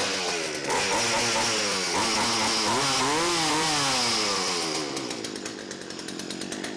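1975 Poulan Wood Shark two-stroke chainsaw running, revved up and down a few times as the throttle is worked. It drops back to idle about five seconds in.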